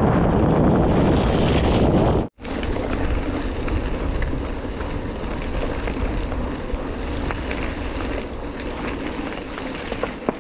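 Wind buffeting the microphone during a bicycle ride, broken off abruptly about two seconds in; after the cut, a quieter steady rush of riding noise with scattered small clicks.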